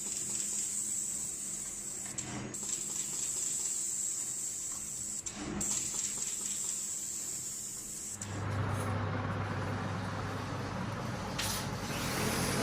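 Machine noise: a steady hiss, broken twice by brief dips. About eight seconds in, a louder machine noise with a steady low hum takes over.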